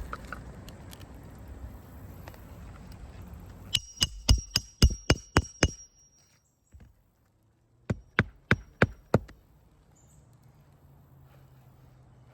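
Hammer driving roofing nails into an asphalt shingle, the strikes ringing slightly. A quick run of about eight blows, then after a pause of about two seconds a second run of about six.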